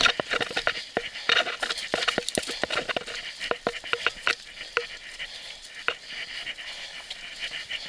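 Mountain bike tyres running fast over a wet, gritty gravel trail: a steady crackling hiss with many sharp clicks and knocks as the bike rattles over stones and roots. The knocks come thick and fast at first and thin out after about five seconds.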